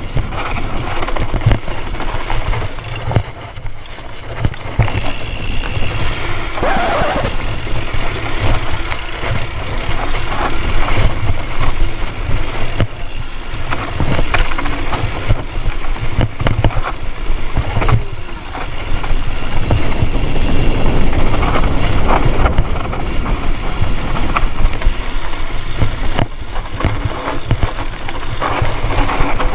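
Hardtail mountain bike riding down a rough dirt trail, a steady clatter of knocks and rattles from the bike over a heavy rumble of wind noise on the microphone.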